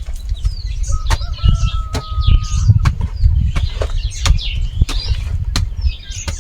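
Small birds chirping and calling, with one steady whistled note about a second in, over a loud, uneven low rumble and many sharp clicks close to the microphone.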